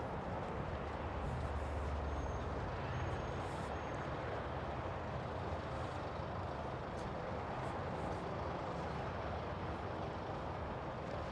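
Steady vehicle noise: a low engine rumble with an even wash of road and traffic sound, a little stronger about two seconds in.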